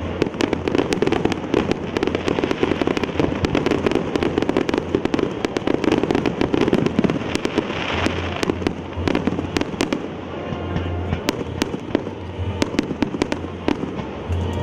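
Fireworks show: shells bursting and crackling in rapid succession, densest in the first half and thinning out near the end, with music playing underneath.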